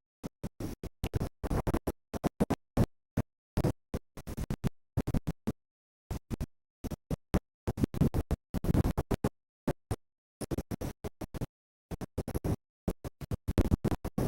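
Audio chopped into rapid short bursts, each cut off by dead silence, in an irregular stuttering pattern that sounds like DJ scratching.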